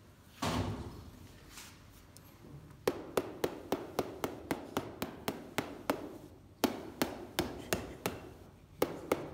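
A small cheese-grader's hammer tapping quickly over a whole wheel of Parmigiano-Reggiano, about four light knocks a second in short runs. This is the tapping test for hollows or cracks inside the aged wheel. There is a brief dull thud about half a second in.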